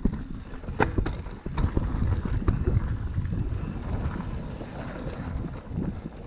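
Mountain bike rolling fast down a rocky dirt trail: tyres rumbling over dirt and rock, with wind buffeting the microphone. Several sharp knocks and rattles of the bike sound in the first half as it rides over rocks.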